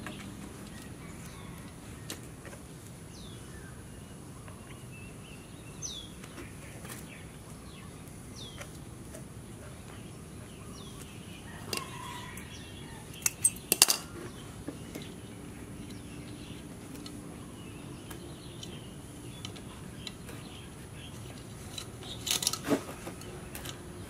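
Birds chirping now and then over a steady background hiss, with sharp clicks and taps from nylon trimmer line and a brush-cutter head being handled: a cluster about 13 seconds in, the loudest, and more near the end.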